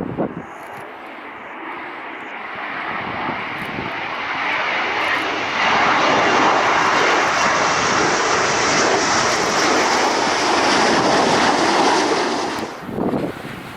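F-35 fighter jet's single turbofan engine passing close by, its rushing roar building over several seconds and then staying loud for about six seconds. The sound cuts off suddenly near the end.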